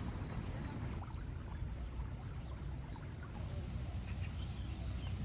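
Outdoor ambience: crickets trilling steadily with one constant high note, over a low steady rumble.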